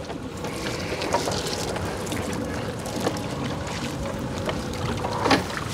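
Small fishing boat on the river during the hauling of a gill net: a steady bed of wind and water noise with a faint steady hum, broken by a few short knocks and clatters, the loudest about five seconds in.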